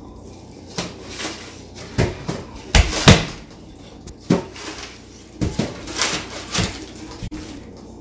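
A homemade box-built toy vacuum cleaner being pushed, knocked and scraped across a tile floor: irregular clunks and thumps, the loudest two close together about three seconds in.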